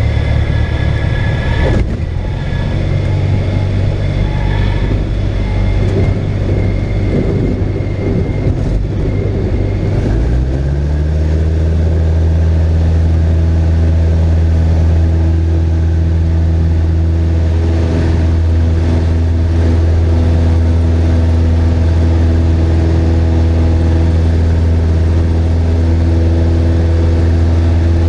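Cessna 172's piston engine and propeller heard from inside the cockpit. The engine runs low under a rough rolling rumble on the runway, then about ten seconds in the throttle goes up and it settles into a loud, steady full-power note for the touch-and-go takeoff and climb.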